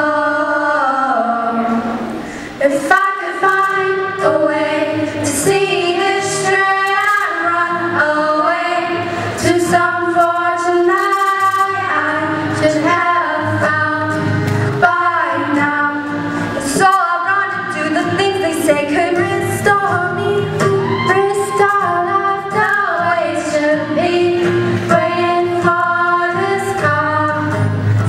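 Two girls singing a song live over an acoustic guitar, with a brief drop in the music about two seconds in.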